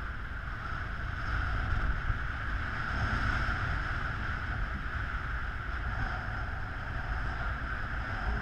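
Steady rush of wind over an action camera's microphone on a paraglider in flight, with low buffeting rumble underneath.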